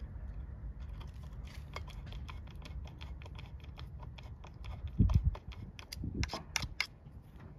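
Small irregular metallic clicks and rattles from an electric chainsaw's chain and bar as its chain-tensioning screw is turned with a screwdriver, with a few louder knocks about five seconds in and again just after six seconds.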